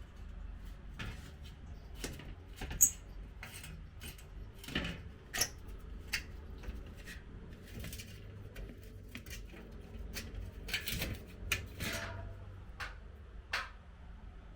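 Split air-conditioner indoor unit running with a steady low hum, its casing giving irregular small clicks and rattles. The rattle comes from the casing vibrating: its fixing screws and mounting-plate screws were left loose on a bracket that would not hold firm in a white-brick wall.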